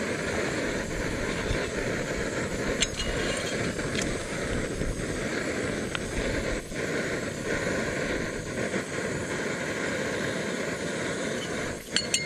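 Portable gas canister stove burning steadily under a metal mug of water coming to the boil, with a few light clicks and knocks as the mug is handled.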